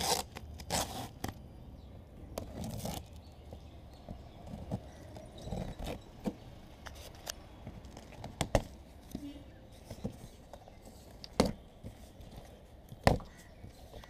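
A cardboard shipping box and its packaging being opened by hand: tearing, scraping and rustling, with a few sharp knocks or clicks in the second half.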